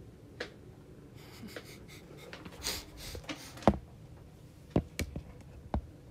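Rustling, then several sharp knocks and clicks, the loudest a little past the middle: a phone camera being picked up, moved and set down.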